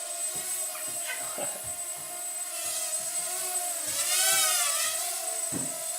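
Mini building-block quadcopter's four small 8520 motors and propellers buzzing in flight, the whine wavering in pitch and swelling up and back down about four seconds in as the throttle changes.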